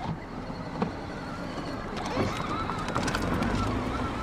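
Small electric motor of a child's battery-powered ride-on toy car whining steadily over a low rumble, starting about halfway through, with its battery nearly flat.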